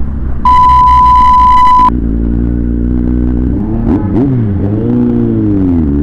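Inline-four motorcycle engine running under way, with its note rising and falling in the second half as the throttle changes. About half a second in, a loud, steady single-pitched beep cuts in, lasts about a second and a half and stops abruptly.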